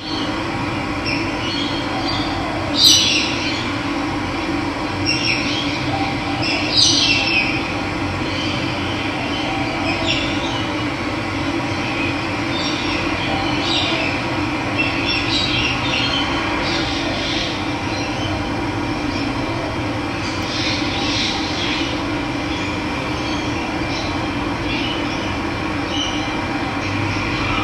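Steady rush of running water, with short bird calls breaking through every few seconds, loudest about three and seven seconds in.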